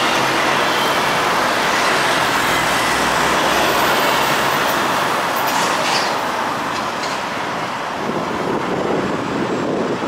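Road traffic rushing past close by, a steady wash of engine and tyre noise, with a large vehicle going right past at the start.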